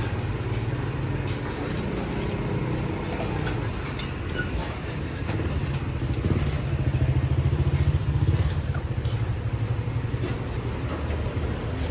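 Small motorcycle engine running close by, loudest about six to eight seconds in as it passes, over a steady low engine hum.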